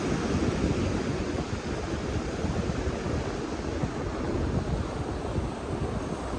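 North Sea surf washing steadily onto the beach, with wind gusting and rumbling on the microphone.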